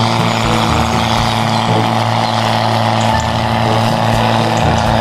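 Large farm tractor's diesel engine running hard at steady revs under heavy load, pulling a weight sled in a tractor pull.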